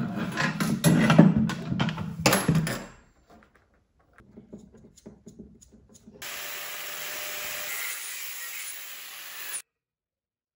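M6 stainless steel threaded rods being handled on a workbench: about three seconds of loud rattling and scraping with sharp clicks, then a few lighter knocks. Later a steady hiss runs for about three seconds and cuts off abruptly.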